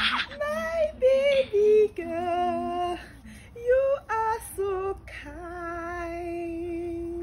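A woman singing a short melody alone, a single voice on wavering notes with short breaks, ending on one long note held for about two seconds.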